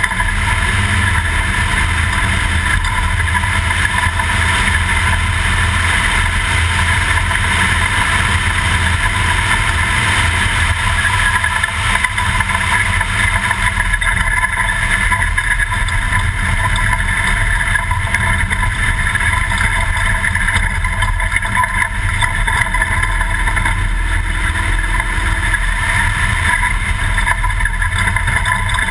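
Toyota off-road race truck running steadily, with the engine's low drone mixed with drivetrain, road and wind noise. There are no sharp revs or impacts.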